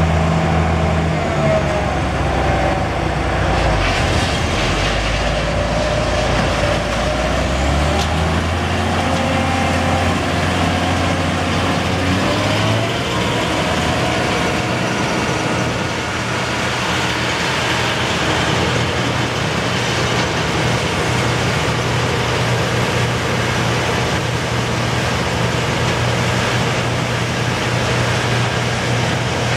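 Harvest machinery running steadily while harvesting soybeans, most likely a combine's diesel engine with its threshing and separating works. The engine note shifts a few times during the first dozen seconds, then settles into an even hum.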